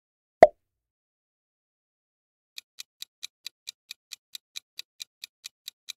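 A countdown-timer clock-ticking sound effect, even sharp ticks about four to five a second, starting about two and a half seconds in. Earlier, about half a second in, a single short, loud pop-like sound effect.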